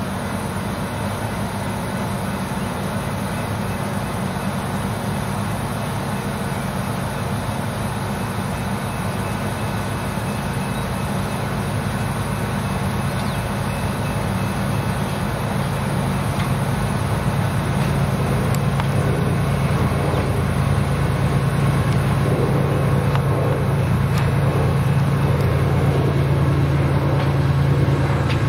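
Diesel locomotives of an approaching freight train: a steady low engine hum that grows gradually louder through the second half.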